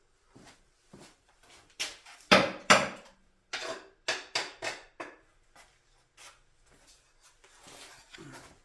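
A series of sharp knocks and clicks from parts and hand tools being handled on a workbench. The loudest are two close knocks about two seconds in.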